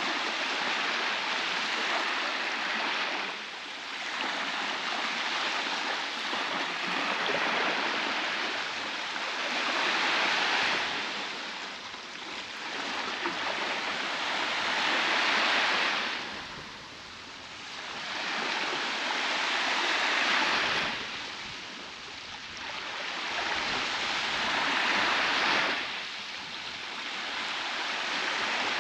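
Baltic Sea waves breaking on a beach: a steady wash of surf that swells and ebbs about every five seconds as each wave comes in.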